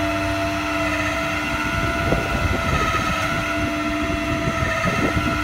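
Flatbed tow truck running with its hydraulic winch engaged, giving a steady mechanical whine over a low engine rumble while a pickup is winched up onto the tilted deck.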